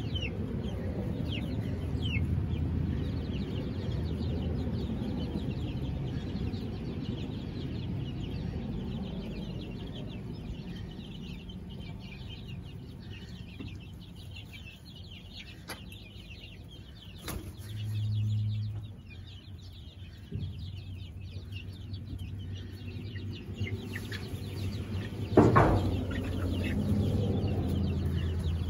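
A flock of young chickens peeping and clucking steadily. One sharp knock about three-quarters of the way through is the loudest sound.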